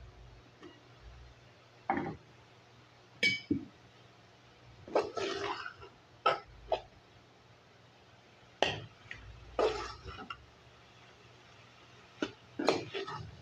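Aluminium pot lid lifted off and set down, then a metal spoon stirring ground beef and cabbage in an aluminium pot, knocking and scraping against its sides in short, separate clinks.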